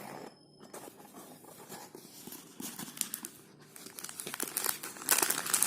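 Plastic jewellery packaging crinkling and rustling as it is handled and unwrapped by hand, getting louder near the end.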